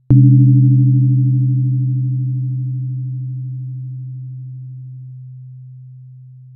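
A 128 Hz therapy tuning fork struck once just after the start, giving a sharp attack and then a steady low hum that slowly fades. A fainter, higher pulsing overtone dies away about five seconds in.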